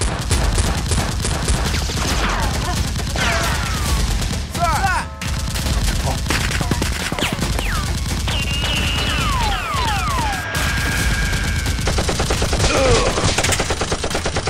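Rapid automatic gunfire, a dense volley of shots with falling whistles mixed in through the middle. From about twelve seconds in it turns into an even, fast machine-gun rattle.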